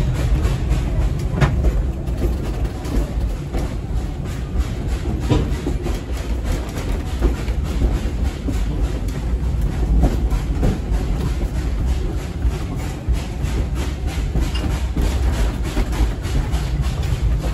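Ride noise inside a wooden two-foot-gauge passenger coach on the move behind a steam locomotive: a steady low rumble of wheels on the rails with a fast, even beat.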